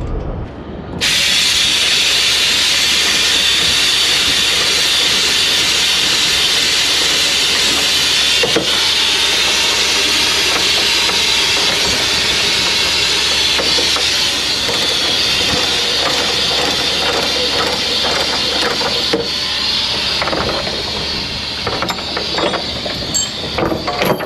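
Compressed air rushing out of a trailer's air-ride suspension airbags as they are deflated: a loud, steady hiss that starts suddenly about a second in and eases slightly near the end. The bags are dumped so the unloaded trailer doesn't spring up and hyperextend its shock absorbers.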